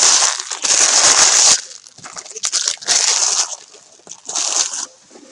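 Hockey cards and their packs being handled and sorted by hand: loud rustling and crinkling in three bursts, the first lasting about a second and a half, the others shorter, about three and four and a half seconds in.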